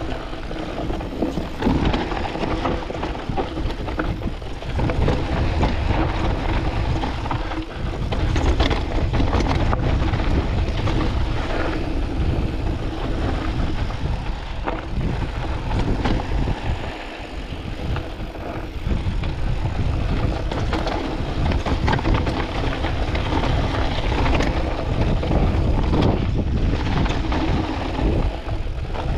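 Canyon Spectral AL 6.0 full-suspension mountain bike riding down a dusty, rocky singletrack, heard from a chest-mounted camera. The tyres roll over loose dirt and stones, and the bike rattles and knocks over the bumps. Wind rumbles on the microphone throughout.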